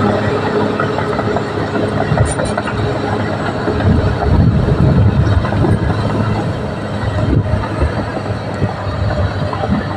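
Caterpillar D6R XL bulldozer working: its diesel engine runs steadily under load while the steel tracks clank and rattle, getting louder for a couple of seconds midway.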